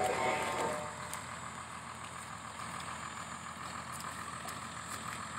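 Truck-mounted borewell drilling rig's engine running steadily, with a brief louder sound in the first half-second.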